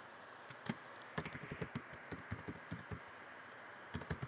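Typing on a computer keyboard: a quick run of key clicks, pausing about three seconds in and resuming near the end.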